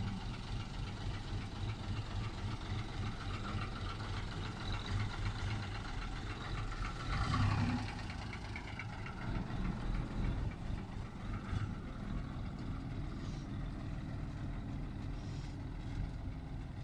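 Diesel engine of a vintage city bus running steadily at low revs as the bus manoeuvres. About seven seconds in the engine swells louder and its pitch slides, then it settles back.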